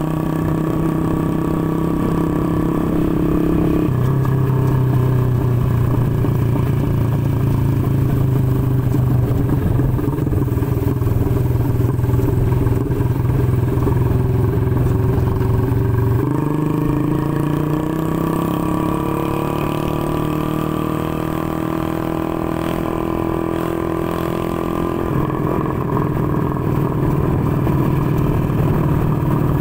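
Motorcycle engine running under way on the road. Its pitch drops abruptly about four seconds in and again near the middle, then climbs steadily for several seconds before shifting again near the end.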